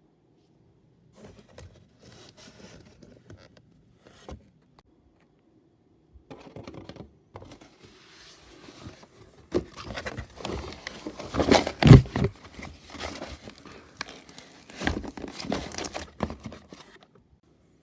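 Spilled slime being handled and cleaned up: irregular crinkling, tearing and squishing noises, faint at first and busier from about six seconds in, with a loud thump about twelve seconds in.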